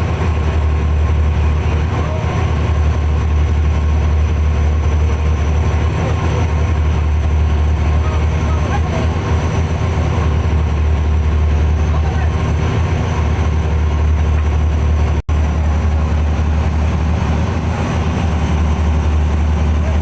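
Fishing boat's engine running steadily, a loud low drone, with a momentary break in the sound about fifteen seconds in.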